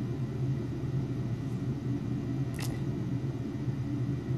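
Steady low hum, with a single short click a little past halfway through.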